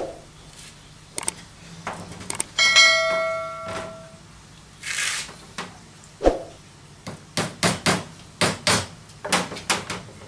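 Metal parts being handled, giving sharp clicks and knocks. About two and a half seconds in, one metallic clang rings on for about a second, and a quick run of clicks and knocks follows near the end.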